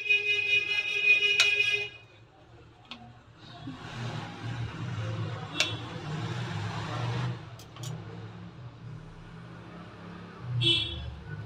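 Road traffic: a vehicle horn sounds for about two seconds at the start, a vehicle rushes past in the middle over a low steady rumble, and a shorter horn beep comes near the end.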